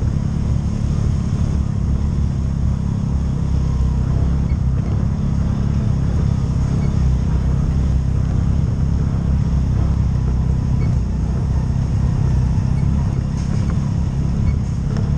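CFMOTO UFORCE side-by-side's engine running steadily as it drives along a dirt forest trail, a dense low drone with no revving.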